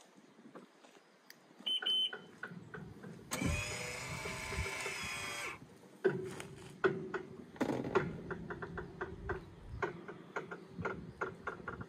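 Electric actuator motors running as the boat's powered cockpit covers and seat backs fold closed: a short high beep about two seconds in, then a steady motor whine for a couple of seconds, then a lower motor hum with repeated clicks and knocks as the panels move.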